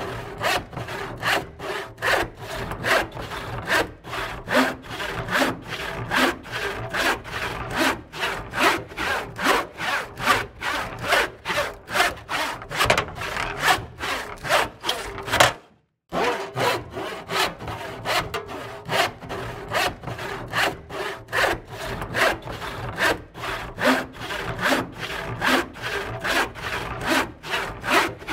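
Hand saw cutting through wood in steady back-and-forth strokes, about two to three a second. The sound drops out for about half a second midway, then the sawing resumes at the same pace.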